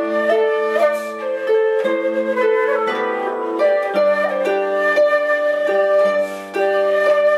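Low whistle playing a melody, with a harp plucking an accompaniment beneath it.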